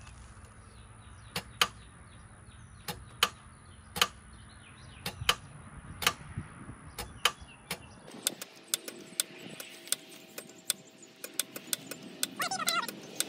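Sharp clicks from a Chevrolet Impala's starter as the key is turned, about one a second at first and quicker after about eight seconds; the engine does not turn over, and the owner is fairly certain it is locked up.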